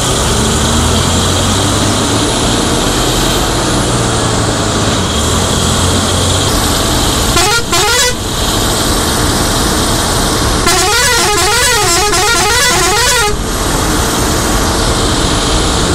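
Bus running at speed on a wet highway, its engine and tyres making a steady noise. A warbling vehicle horn sounds briefly about seven seconds in, and again for about two and a half seconds around eleven seconds in.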